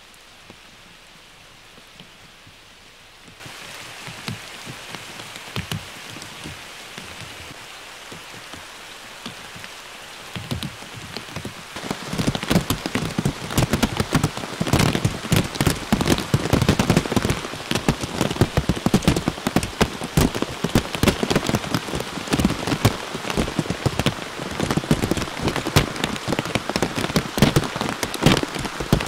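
Hailstones falling on spruce branches and the forest floor in a hail shower: faint at first, then growing much denser and louder after about ten seconds, a thick run of close-spaced small impacts.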